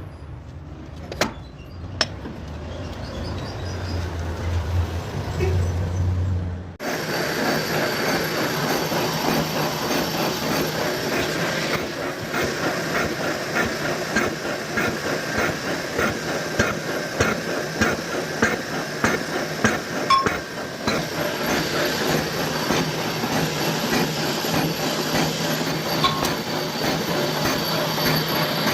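Metal lathe turning a cast iron part. A low steady hum with two sharp clicks, then about seven seconds in a sudden change to a louder, rough, rattling cutting noise with a steady whine on top.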